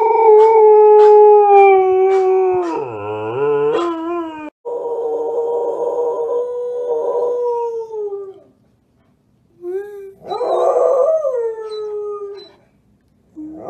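Two Samoyed-type dogs howling one after the other. First, one long held howl wavers and slides in pitch, then cuts off about four and a half seconds in. Then a second dog gives long drawn-out howls with short pauses between them, each one falling away at its end.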